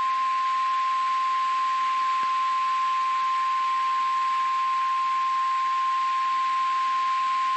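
NOAA Weather Radio's 1050 Hz warning alarm tone: one steady, unbroken single-pitch beep held for about nine seconds, the attention signal that opens a National Weather Service warning. A steady hiss lies underneath it.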